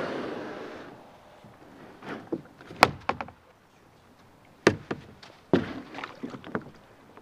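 A kayak being moved at the creek's edge: a brief scraping rush of the hull in the first second, then a series of sharp knocks and hollow thuds against the hull.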